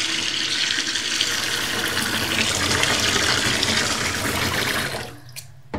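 Hot water tap running into a kitchen sink: a steady gush of water filling the sink, turned off about five seconds in, then one short knock.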